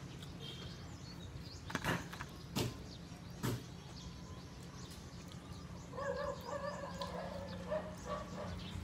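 Three sharp crackles, under a second apart, of crispy lechon (roast pig) skin being broken and eaten by hand, over a steady low hum. About six seconds in, a wavering pitched sound sets in and carries on.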